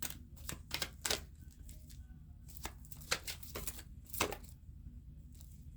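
Oracle cards being shuffled by hand: a string of irregular sharp flicks and snaps.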